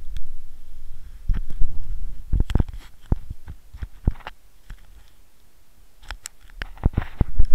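Handling noise from the camera being carried: irregular knocks, scrapes and fabric rubbing against its case, with footsteps on wooden decking. The knocks come in two flurries with a quieter stretch in the middle.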